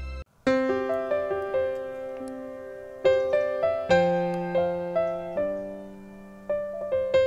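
Background music: a slow piano melody of single struck notes, each fading away. It begins after a brief break about half a second in.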